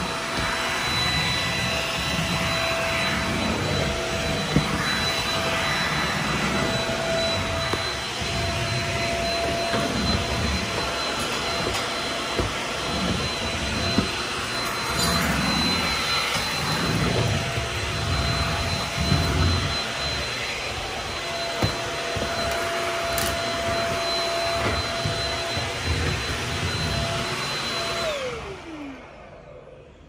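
Stick vacuum running on a hardwood floor, its motor giving a steady whine. Near the end it is switched off and the motor winds down, its pitch falling.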